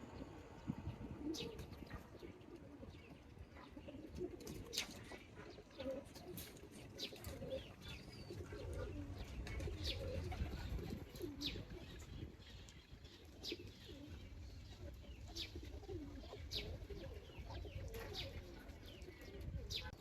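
Domestic pigeons cooing in short, repeated low calls, with brief sharp high chirps scattered throughout.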